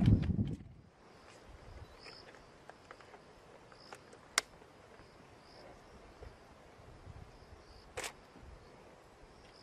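Crickets chirping in short, evenly repeated pulses, with two sharp clicks about four and eight seconds in. A vehicle engine's low running cuts off just under a second in.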